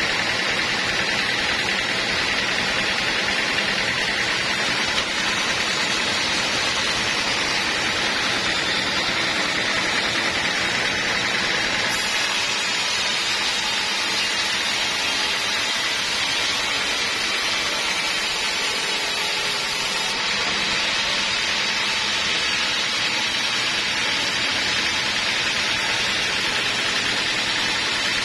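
Sawmill machinery running with a steady, unbroken noise: a saw working through teak logs.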